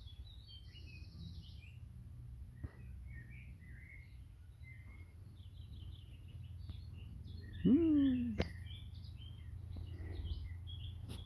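Small birds chirping and twittering on and off over a steady low hum. About two-thirds of the way through, an adult cat gives one loud meow that rises and then falls: the mother cat calling her kittens to food.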